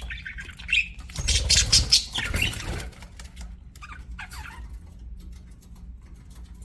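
Pet budgerigars chirping in short twittering calls, with a loud rustling burst lasting about two seconds starting about a second in, then a few scattered chirps and light clicks. A steady low hum runs underneath.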